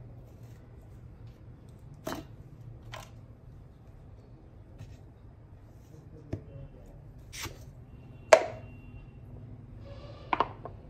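Handling sounds of a stainless-steel mixer-grinder jar and its plastic lid: a few scattered knocks and clicks, the loudest a sharp knock with a brief ringing tone about three-quarters of the way through, and a quick cluster of clicks near the end, over a faint steady low hum. No grinder motor is heard.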